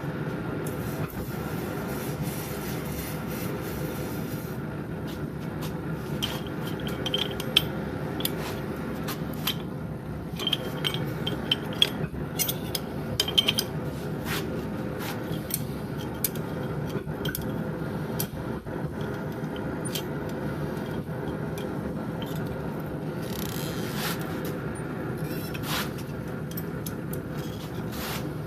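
Scraping and rubbing strokes on a forged metal piece, with scattered sharp clicks, over a steady machine hum.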